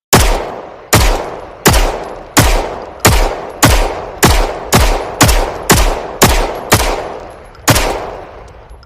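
Browning Hi-Power pistol fired thirteen times in steady succession, a little under two shots a second with a slightly longer pause before the last, each shot trailing off in a long echo.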